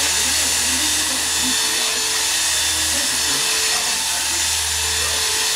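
Corded electric hair clippers buzzing steadily as they are run close over a shaved scalp, with a low hum that drops out briefly a few times.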